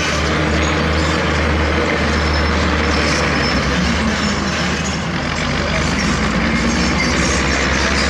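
Heavy diesel earthmoving machinery running steadily under load, a low engine drone beneath a dense mechanical clatter and hiss.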